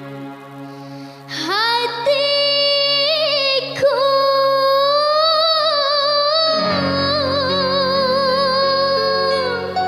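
A young girl singing dangdut in a high voice: about a second in she slides up into a long held high note with a wavering vibrato, sustaining high notes almost to the end, over backing music.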